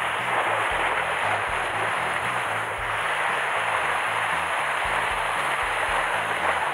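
Sea water washing and churning steadily against a rocky shore. A background music track with a low bass line plays underneath.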